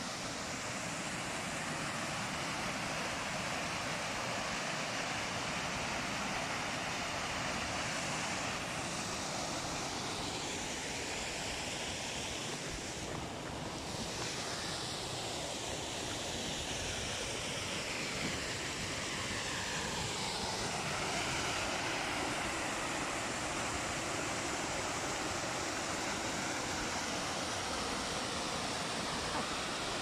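Small waterfall cascading over rocks into a river: a steady rush of water.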